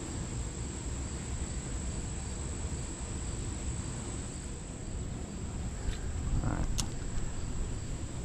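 Insects trilling in one steady high-pitched drone, over a low rumble, with a single sharp click near the end.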